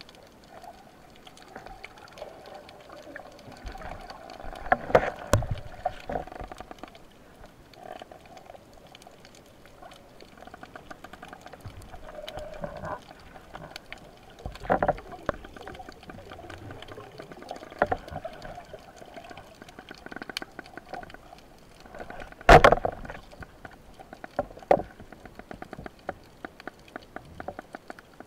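Underwater sound picked up by an action camera in its waterproof housing: a steady, muffled watery background with a fine crackle, broken by several sharp knocks, the loudest about twenty-two seconds in and others near five, fifteen and eighteen seconds.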